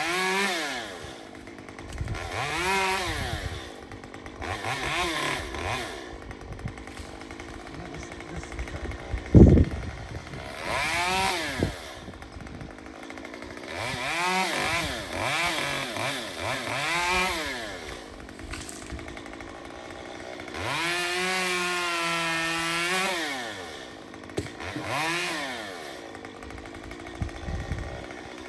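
Chainsaw revving up and down again and again as it cuts, with a longer run at full speed about two-thirds of the way in. A single loud thump about nine seconds in.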